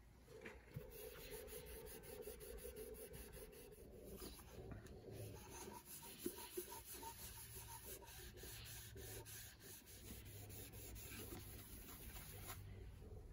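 Soft polishing cloth rubbing over the finished wooden top of a Kamaka ukulele, a faint steady swishing in short back-and-forth strokes that stops near the end.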